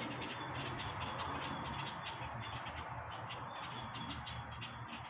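Birds calling, a dense run of short calls and chatter.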